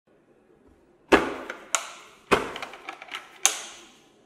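Hard plastic tool carrying case being handled and its two plastic latches snapped open: four sharp plastic clacks, the first about a second in, with small rattles between the last two.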